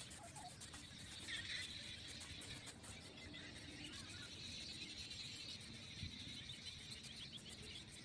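Faint outdoor farmyard ambience: a steady high chirring with occasional small chirps over a low background rumble.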